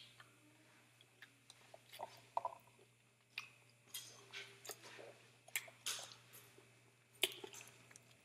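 Faint scattered clicks and light knocks of handling, a dozen or so spread unevenly over several seconds.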